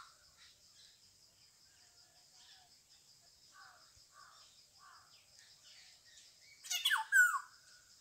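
Black-hooded oriole giving one harsh, raspy call that ends in a falling note about seven seconds in, over a steady high hiss and faint chirps of other birds.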